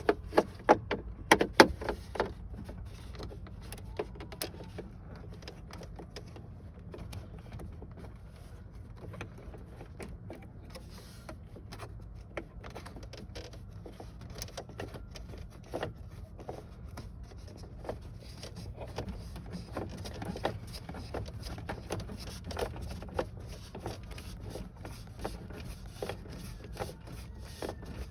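Scattered clicks and light knocks of a socket extension and plastic dash trim being handled as screws are backed out of the dash, sharpest in the first two seconds, over a steady low hum.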